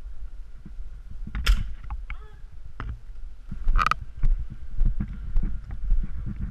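Handling and movement noise from a player moving with airsoft gear: a low rumble with regular knocks about twice a second, and two sharp cracks, one about a second and a half in and one about four seconds in.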